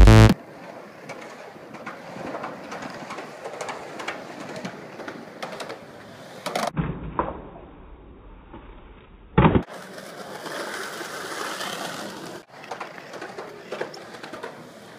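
Electronic music cuts off right after the start, leaving raw skateboard sound: wheels rolling on asphalt with scattered sharp clacks of the board hitting the ground. About nine and a half seconds in comes one loud slam of a board landing.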